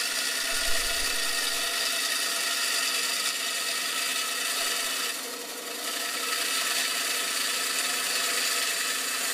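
Inland DB-100 band saw with a water-dripped diamond blade running and grinding steadily through a glass bottle as it is fed into the blade. The grinding dips briefly about five seconds in.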